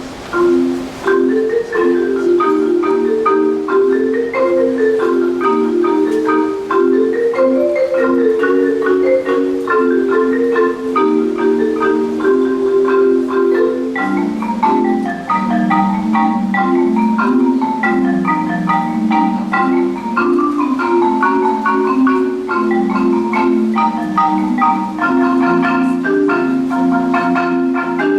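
Marimba played with mallets: a steady, flowing stream of quick struck notes in a repeating pattern, with the lower notes moving down about halfway through.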